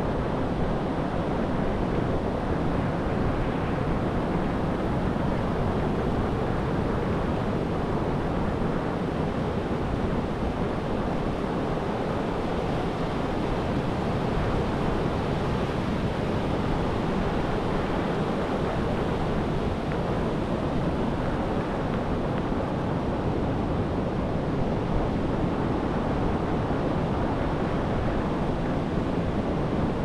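Ocean surf breaking on a beach: a steady, even wash of noise that barely rises or falls.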